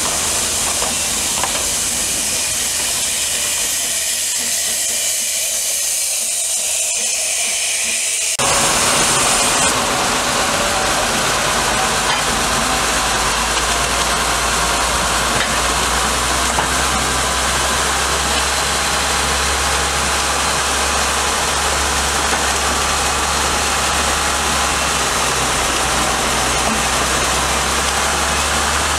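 Steam hissing from a 2 ft gauge steam locomotive. About eight seconds in it gives way abruptly to a louder, fuller hiss over a low steady hum.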